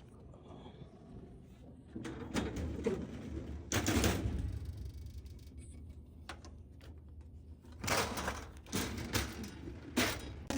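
Irregular knocks and clatter, a few sharp ones in quick groups, over a low steady rumble.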